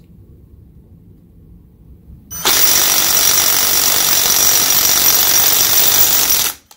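Avid Power 20V cordless half-inch impact wrench hammering continuously against a bolt on a torque tester for about four seconds, starting about two and a half seconds in and cutting off suddenly near the end.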